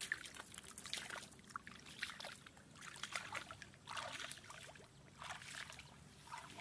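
Small irregular splashes and trickles of water, with scattered light clicks.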